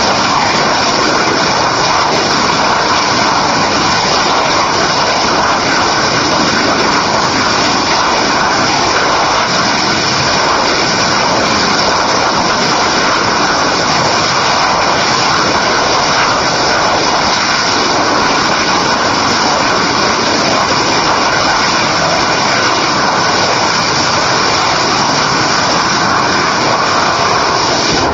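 Masten XA-0.1B-750 rocket engine, with a new aluminum thrust chamber, firing continuously in a loud, even rush of noise as the vehicle hovers and settles onto the pad.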